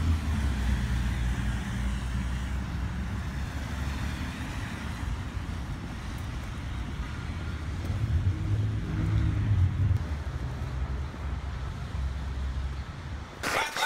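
Street traffic noise: passing cars give a low, steady rumble under an even hiss, swelling for a couple of seconds past the middle.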